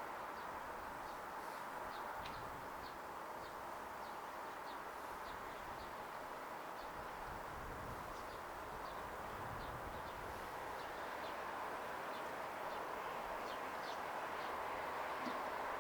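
Small birds chirping over and over, short high chirps every half second or so, over a steady outdoor hiss.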